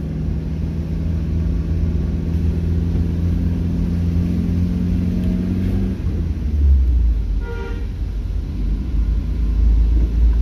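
Vehicle engine running with a low road rumble, its steady hum rising slightly and then dropping away about six seconds in. A short horn toot sounds about seven and a half seconds in.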